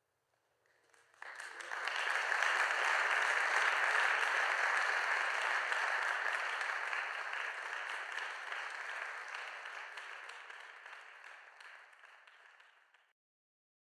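Audience applauding. The applause starts about a second in, swells quickly, then slowly dies away and stops abruptly near the end.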